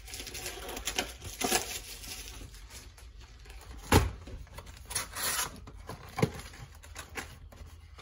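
Cardboard trading-card box being handled and opened into a display: rubbing and scraping of the cardboard, with a thump about four seconds in as the box is set down on a stone countertop, and a few lighter knocks after.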